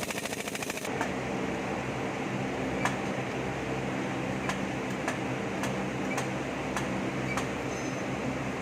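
Ford Ranger engine just started: a rapid rattle for about the first second, then a steady idle with light ticks about every half second. The start-up rattle is the noise the video puts down to the transmission and dual-mass flywheel.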